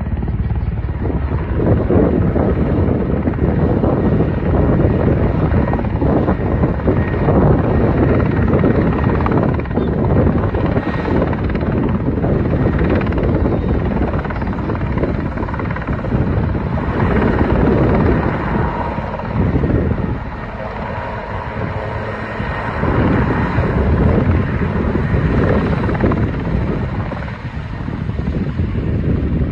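Military helicopter running loud and close, with a faint steady high whine over the rotor noise. The level dips for a few seconds about two-thirds of the way through.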